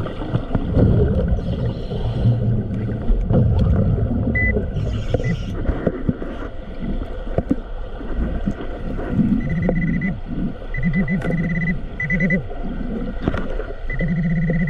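Underwater metal detector giving a pulsing, warbling target tone, on and off from about halfway in and steadily near the end: the detector is signalling metal under the diver's coil. Beneath it, a low rumble heard underwater.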